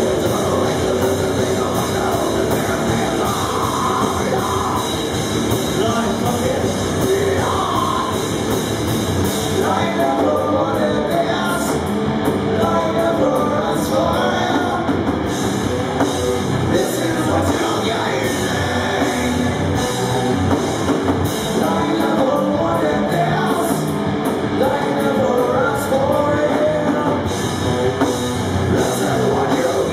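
Live heavy rock band playing loud, with distorted electric guitars and a singer's vocals over the PA.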